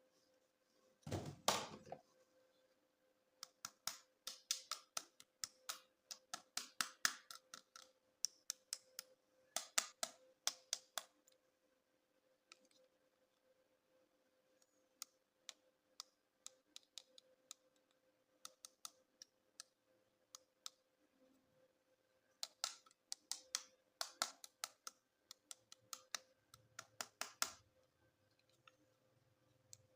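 Hands handling plastic toys and packaging: a louder handling noise about a second in, then clusters of light clicks and taps.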